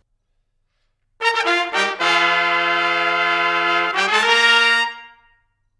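Brass fanfare: a few quick notes, then a long held chord and a final chord that fades out.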